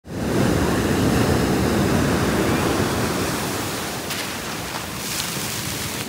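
Ocean surf rushing on the beach, a steady wash that is loudest at first and eases off after about three seconds.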